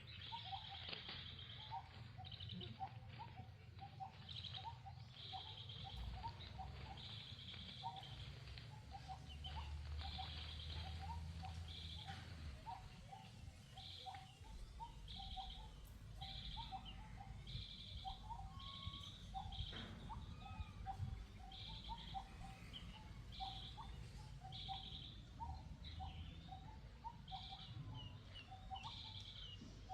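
Outdoor birdsong: short mid-pitched notes repeated about twice a second, with higher chirps roughly once a second, over a low background rumble.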